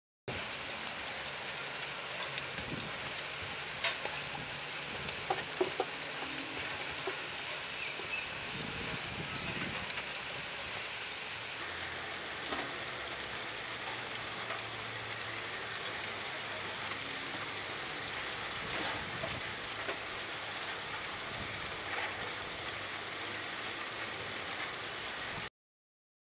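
A steady, even hiss with scattered faint clicks and light taps; the hiss thins in its highest part about twelve seconds in.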